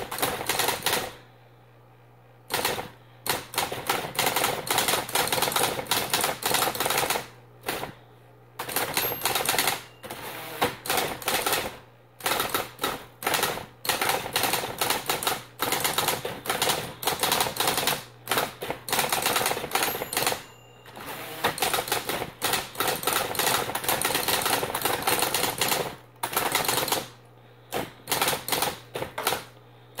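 Smith-Corona Electra C/T electric typewriter being typed on fast: dense runs of rapid key strikes broken every few seconds by short pauses, over the steady low hum of its continuously running electric motor.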